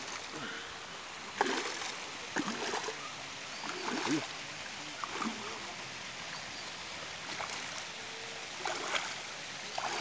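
Irregular knocks and rustles as a large patinga is handled and unhooked in a nylon landing net on the ground, about one every second or two.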